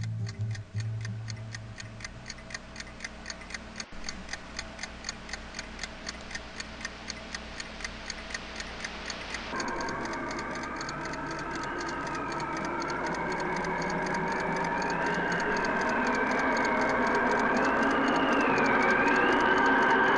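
A clock ticking steadily, about four ticks a second, as guitar music fades out in the first two seconds. About halfway through the ticking gives way to a sustained sound with a slowly wavering high tone that swells louder to the end.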